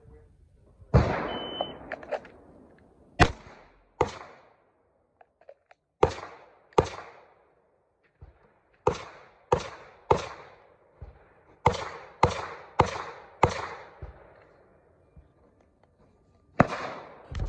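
Walther PDP pistol firing about a dozen shots in uneven strings of one to four, each a sharp crack with a short echo. A brief high beep about a second in, the shot timer's signal.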